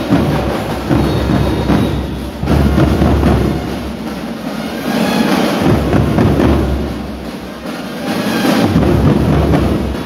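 A school marching drum corps of many drummers playing a cadence together on marching drums. The deep drum beats thin out for a few seconds midway and come back strongly near the end.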